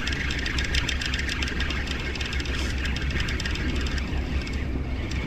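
Spinning reel being cranked in, a fast run of small clicks that thins out about four seconds in, over a steady low rumble.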